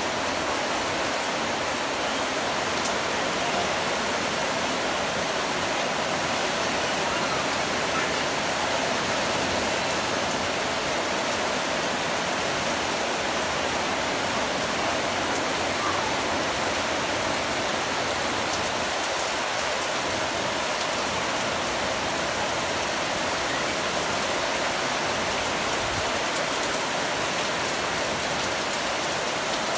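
Heavy rain pouring down steadily, an unbroken hiss of water falling onto leaves and surfaces.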